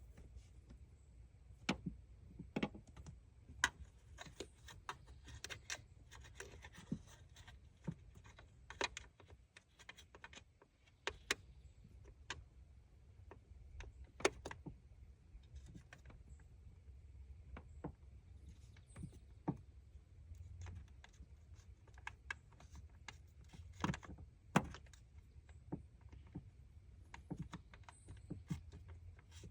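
Irregular light clicks and knocks from tools and parts being handled during distributor work, over a low steady hum.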